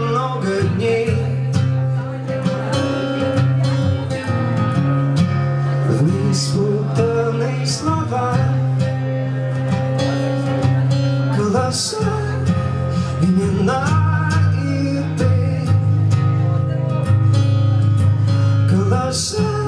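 Steel-string acoustic guitar strummed and picked while a man sings into a microphone, a live acoustic song.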